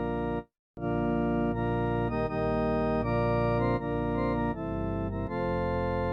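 Electronic organ playing held chords that change every half second or so, breaking off into brief silence about half a second in and again near the end.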